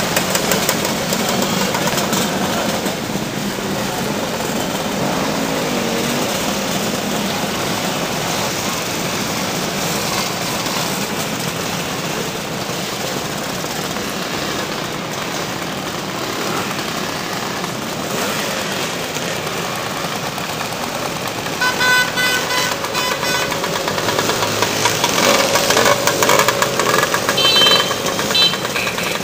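A stream of Vespa and Lambretta scooters riding past, their small engines running in a steady mixed drone. Scooter horns toot a few times about twenty-two seconds in, and again briefly near the end.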